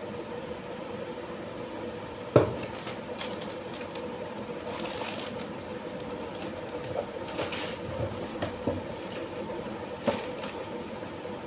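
Handling noises over a steady background hum: a sharp knock a couple of seconds in, brief rustles and small clicks, and another knock near the end, as of a product and its packaging being picked up and set down.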